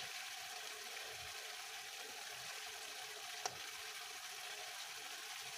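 Butter chicken sauce simmering in a frying pan on the stove: a faint, steady hiss, with one small click about three and a half seconds in.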